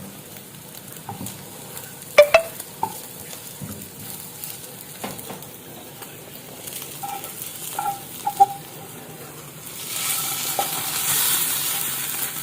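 Food sizzling in a frying pan while a utensil knocks and scrapes against the pan several times, some knocks ringing briefly; the loudest knock comes about two seconds in. The sizzle grows louder and hissier near the end.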